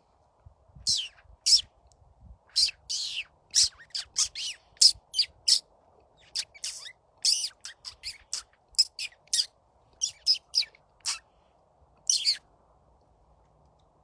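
Florida scrub-jay calling: an irregular run of about two dozen short calls, some sliding down in pitch, that stops about a second and a half before the end.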